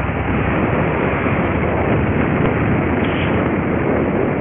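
Wind buffeting the microphone outdoors: a steady rushing rumble with no distinct events.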